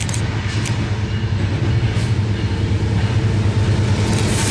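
A train hauled by diesel locomotives goes by: a steady low engine drone, growing slightly louder, with a few sharp clicks.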